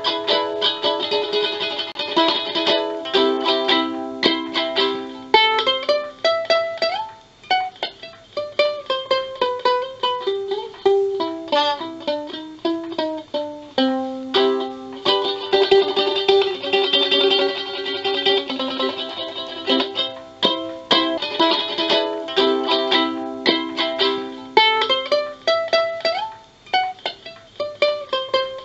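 Strumbox electric ukulele, plugged into a small battery-powered amplifier, playing a tune. Strummed chords alternate with runs of single plucked notes that step downward.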